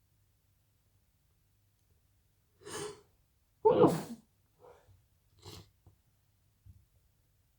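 A person sneezing once, loudly, about three and a half seconds in, after a quick gasping intake of breath; a few short, quieter sniffs follow. The sneezer has a mild cold, a bit of the sniffles.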